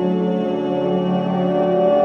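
Background music: sustained keyboard or organ-like chords held steadily.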